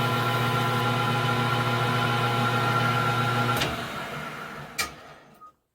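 Small metal lathe running with a steady hum, then switched off about three and a half seconds in and coasting down to a stop, with a sharp click shortly before it goes quiet.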